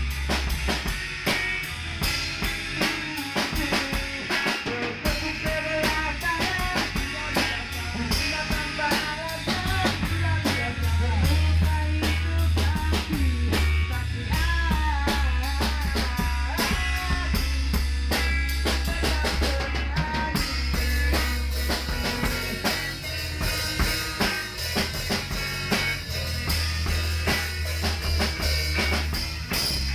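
Live band playing a pop-rock song: a drum kit keeps a steady beat on snare and bass drum under bass guitar, electric guitars and a bending melody line. The cymbals get brighter about two-thirds of the way through.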